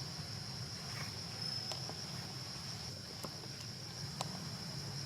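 Insects trilling steadily at one high pitch, with a few faint sharp clicks.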